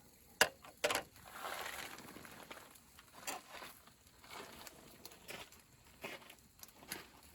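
A few sharp clicks and knocks of small objects being handled, with light rustling and crinkling in between.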